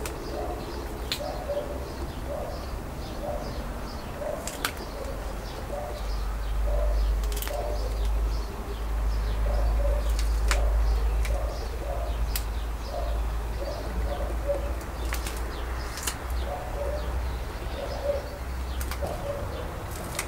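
Doves cooing over and over, with small birds chirping higher up. A low rumble from wind on the microphone swells from about six seconds in to near the end, and a few sharp clicks come through.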